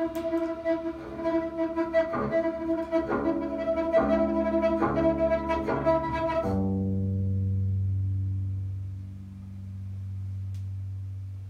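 Improvised electric guitar and bass duo. Held guitar notes over a run of regularly picked notes stop suddenly about six and a half seconds in, leaving a low bass note ringing on and slowly swelling and fading.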